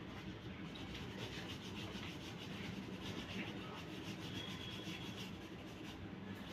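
Oil pastel rubbing lightly across drawing paper in repeated short strokes, a faint scratchy shading sound.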